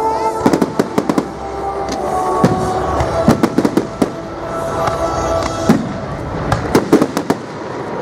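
Fireworks bursting in a display: repeated sharp bangs and crackles, some in quick clusters, over music playing underneath.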